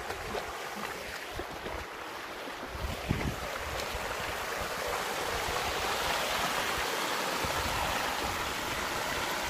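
Shallow stream water rushing and splashing over rocks, growing louder from about four seconds in as the white water comes close. Low wind buffets the microphone in the first few seconds.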